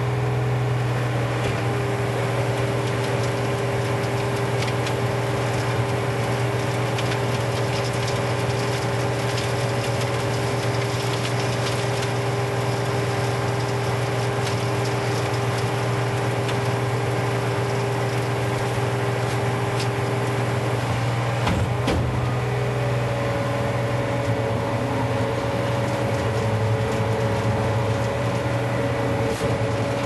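Skid steer loader's engine running steadily while its hydraulically driven Sweepster hopper broom sweeps gravel off asphalt, with many small clicks and rattles of gravel. The machine's steady tones shift about 22 seconds in.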